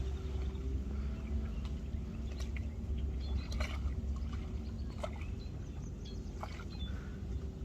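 Canoe on open water: small splashes and light knocks against the hull, over a steady low wind rumble on the phone's microphone, with a few faint high chirps.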